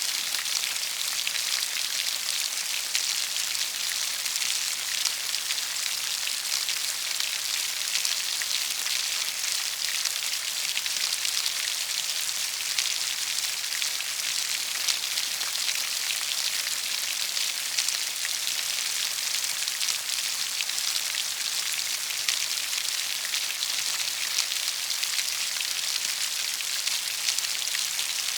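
Steady rain: an even hiss of countless drops, with faint separate drop ticks in it.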